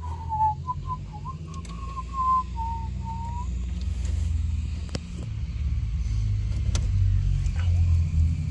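A person whistling a short wavering tune for the first few seconds, over a steady low rumble that grows louder later; a couple of sharp clicks about five and seven seconds in.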